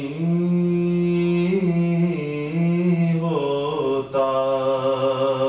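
A man's unaccompanied voice chanting devotional Urdu verse, holding long melodic notes that step up and down in pitch, with a short break for breath a little after four seconds.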